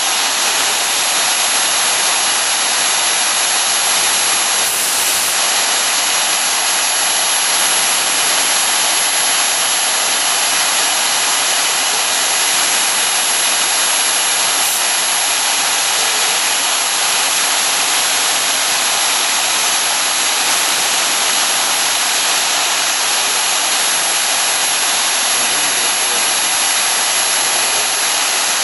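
CNC router spindle running steadily while its end mill cuts a block of foam: a loud, even, continuous hiss with no breaks.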